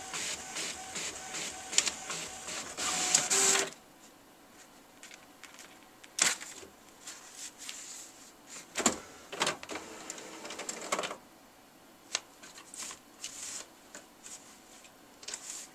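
HP inkjet all-in-one printer printing: the print head shuttles back and forth in a quick, even rhythm over a steady motor whine, then stops abruptly about four seconds in. After that come scattered rustles and taps of printed sheets being pawed by a cat.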